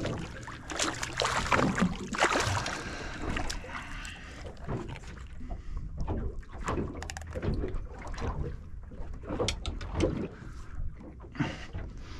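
Water lapping against a small boat's hull, with wind on the microphone. From about halfway through there is a run of short knocks and clatters.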